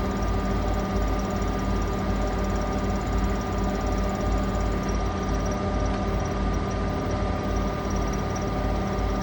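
Asko washing machine in its final spin, the drum turning at a steady high speed: an even hum and rumble with a steady high whine over it.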